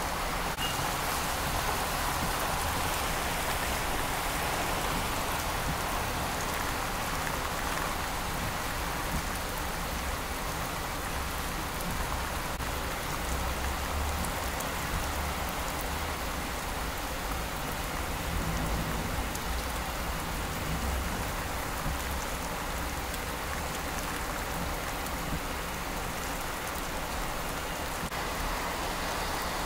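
Steady rain falling onto flooded street water, an even hiss with a low, uneven rumble underneath.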